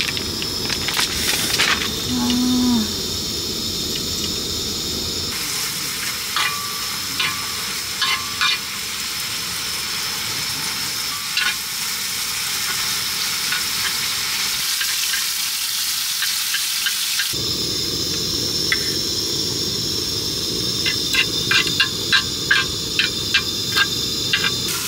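Squid stir-fry sizzling steadily in a frying pan, with a utensil tapping and scraping against the pan now and then and a quick run of taps near the end.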